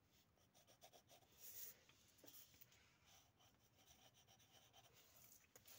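Faint scratching of pencils on paper, drawing and shading, with a slightly louder stroke about a second and a half in.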